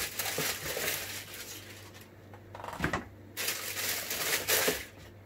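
Thin white packing wrap crinkling and rustling as it is pulled out of a cardboard shoe box and handled, pausing briefly partway through.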